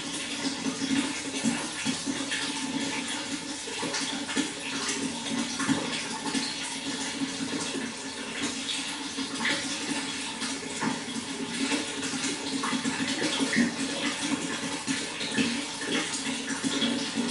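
Water flowing and splashing steadily, a continuous rushing with many small splashes.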